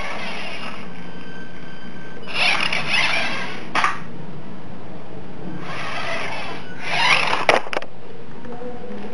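A tiny battery-powered 1/32 scale RC monster truck runs its electric motor and gearbox in three short whirring bursts as it is driven across a hard floor. A couple of sharp clicks come at the ends of the later runs. A steady low hum sits underneath.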